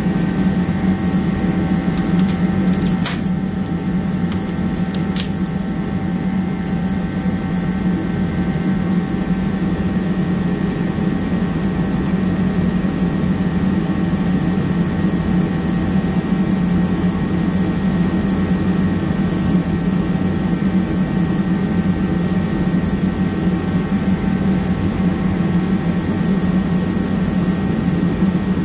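Garage heater running steadily: a constant hum with a fan-like rush. Two light clicks sound about 3 and 5 seconds in.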